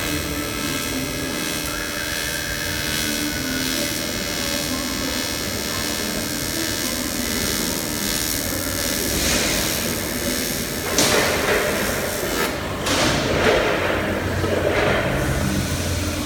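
AC TIG welding arc on aluminium, a steady buzzing hiss, with several louder noisy surges in the second half.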